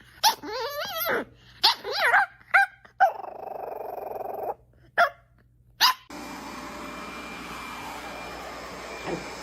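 A dog vocalizing: a wavering, whining howl, then several short yips and barks with a rough, grumbling stretch between them. About six seconds in, this gives way abruptly to a steady background hiss.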